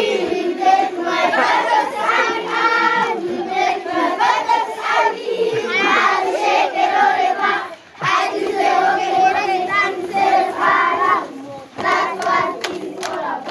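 A large group of young children singing together in unison, holding long notes. The singing breaks off briefly about eight seconds in, and a few sharp clicks sound near the end.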